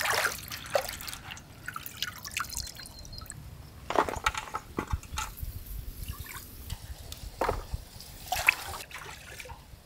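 Water splashing and dripping in a few separate bursts, about five in all, over a quieter steady background.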